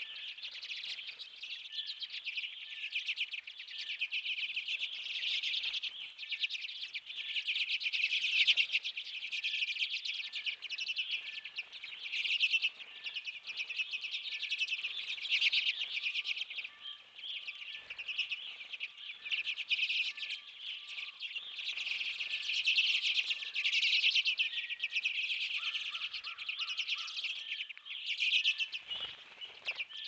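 A flock of common redpolls twittering and chattering continuously in dense, rapid, overlapping calls.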